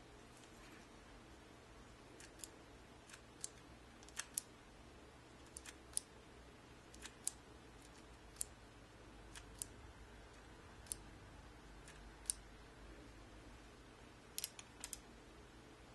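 Faint, irregular small mechanical clicks from a Pentacon Six lens being handled and its aperture worked, about one or two a second with some quick pairs and a cluster near the end.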